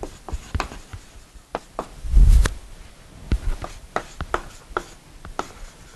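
Chalk writing on a blackboard: a string of irregular sharp taps and short scrapes as words are chalked out. A dull thump about two seconds in is the loudest sound.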